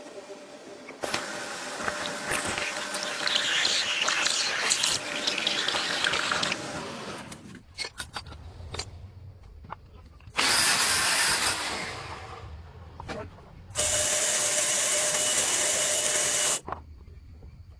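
Power tool work: about five seconds of rough, uneven cutting noise, then two short runs of a power tool. The second run lasts about three seconds, holds a steady whine and cuts off suddenly.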